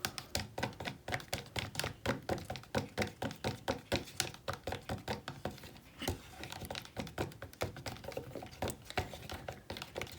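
A fork stirring glue and food dye in a cup, clicking and tapping against the cup at about four strokes a second, with a short break about six seconds in.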